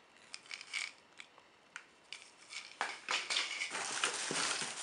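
A few faint clicks, then from about three seconds in a hand rummages in a cardboard box of firework rockets: crumpled paper packing rustles and crinkles, and the wooden rocket sticks give light knocks.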